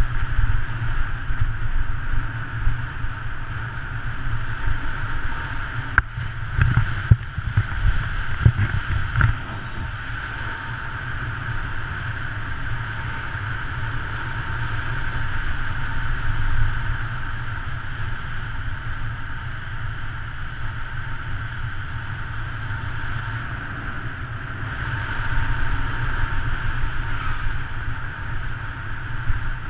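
Wind rushing over the microphone of a camera on a road bike descending at speed, mixed with tyre noise on asphalt: a steady rush with a deep rumble underneath. A run of knocks about six to nine seconds in, from bumps in the road.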